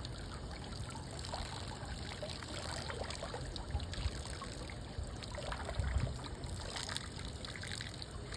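Fresh water running from a hose at the back of a boat and trickling into the water, a steady splashing trickle with a few brief louder splashes.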